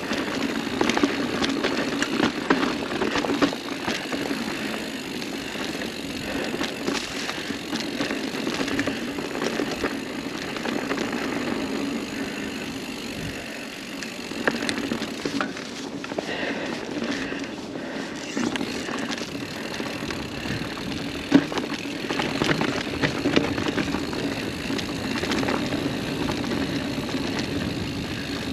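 Mountain bike rolling along a dirt singletrack: a steady rumble of knobby tyres on packed dirt, with frequent clicks and rattles from the bike over the bumps and one sharp knock about three-quarters of the way through.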